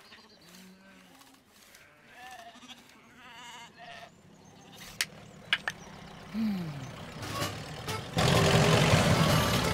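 Cartoon sheep bleating softly over quiet countryside, with a couple of sharp clicks about halfway through. A louder steady noise comes in for the last second and a half.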